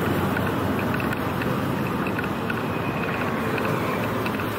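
Steady road traffic noise from motorcycles, auto-rickshaws and cars passing on a busy road, with wind noise on the microphone.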